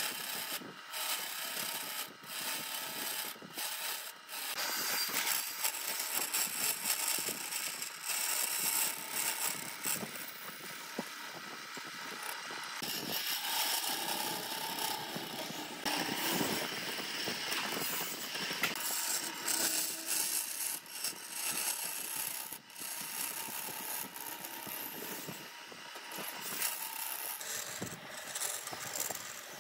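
Power tool working wood: a steady hissing, rasping noise, strongest in the upper range, cut off by several abrupt short breaks before it resumes.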